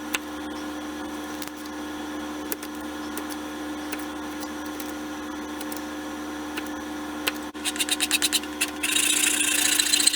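Small power tool running with a steady hum. Near the end, wood is fed into it: a quick run of rasping strokes, then a continuous cutting or sanding hiss.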